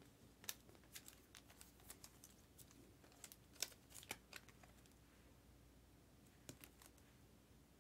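Faint scattered clicks and rustles of plastic as a trading card is handled and slid into a clear plastic holder, most of them in the first half, with a last pair near the end.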